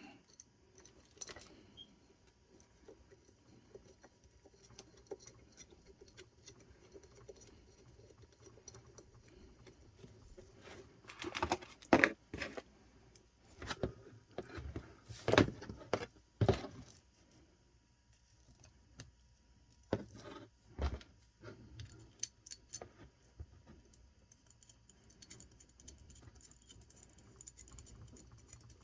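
Scattered metallic clicks and clinks as an RC car motor, its motor mount and the mounting screws are handled and fitted together. Louder clusters come about 11, 15 and 20 seconds in.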